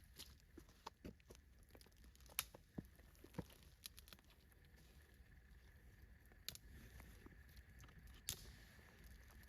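Near silence with scattered faint clicks and taps, a few louder ones spaced irregularly a second or more apart.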